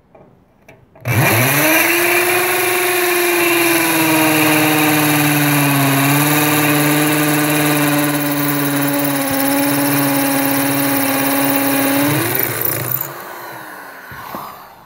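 Corded electric drill spinning up about a second in and running steadily, its bit working through a thin metal strap into a concrete chimney top, then winding down with a falling whine near the end.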